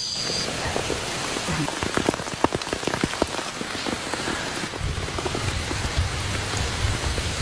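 Heavy rain falling steadily, with many sharp ticks of large drops hitting a surface close by. About five seconds in, a low rumble joins the hiss of the rain.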